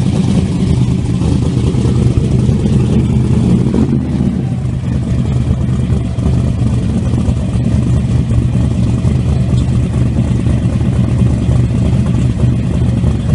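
Twin-turbocharged 632 cubic-inch big-block Chevrolet V8 of a 1968 Camaro, breathing through four mufflers, running at low speed as the car rolls slowly. It is a little heavier for the first four seconds or so, then settles to a steady idle.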